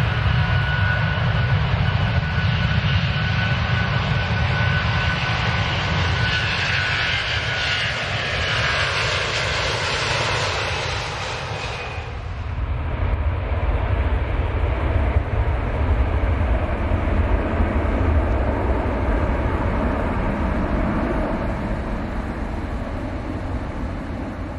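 Airplane engine accelerating: a loud, steady low rumble under a high hiss that builds for about the first half, then cuts off abruptly, leaving the deep rumble running on.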